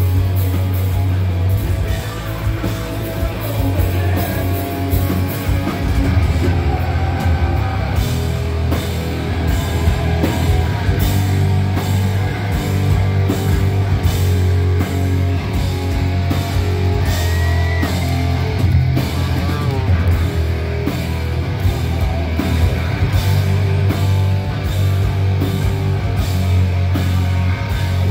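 Live hard rock band playing loud: distorted electric guitars, bass and drums, with regular cymbal hits over a heavy, boomy low end.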